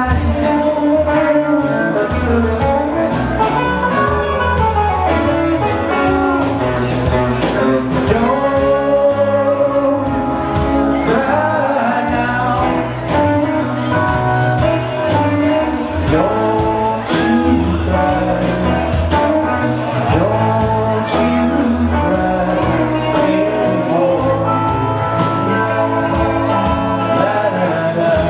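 Live band playing a rock song: a voice singing over guitar, bass and drums, continuous throughout.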